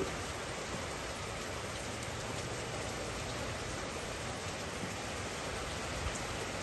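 Steady rain falling, an even hiss, with one faint tap about six seconds in.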